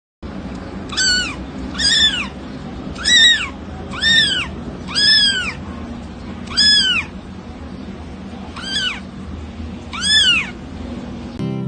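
A cat meowing eight times, about once a second with longer gaps toward the end, each meow rising and then falling in pitch.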